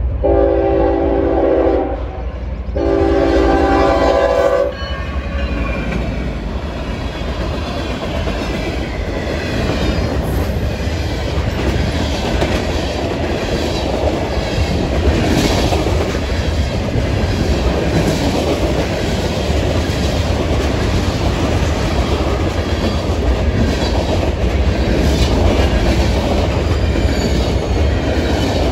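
Nathan Airchime K5HL horn on a GE ES44AC freight locomotive sounding two long blasts, each just under two seconds, at close range. The freight train then rolls past with a steady rumble and a running rhythm of wheel clicks over the rail joints.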